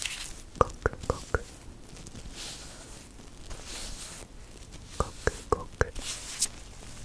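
White rubber gloves being rubbed and worked between the fingers close to the microphone: a quick run of four sharp clicks about half a second in, soft rubbing hiss in between, and another run of four or five clicks near the end.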